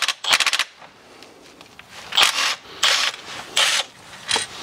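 Ratchet undoing the small bellhousing bolts of a BMW manual transmission, run in a series of short bursts: two rapid clicking runs at the start, then four shorter bursts about two-thirds of a second apart.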